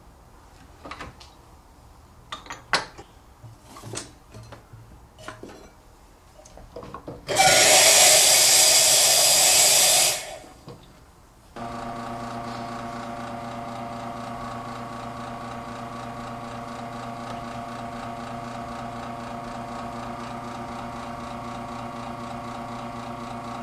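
Light clicks and knocks of a portafilter and cups on an espresso machine. Then a loud hiss of about three seconds, and after a pause the machine's pump starts and hums steadily while the espresso shot pours.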